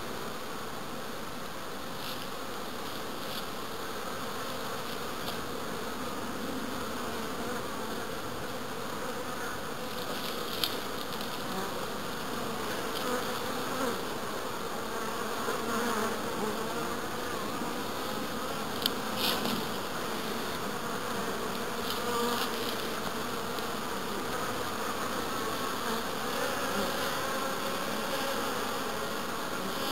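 Honeybees buzzing as they fly around and land at the hive entrances: a steady, wavering hum of many bees, with a few short ticks here and there.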